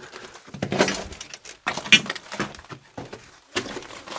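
Irregular scuffs, crunches and knocks: footsteps and shuffling on the loose, crumbly rock of a mine floor.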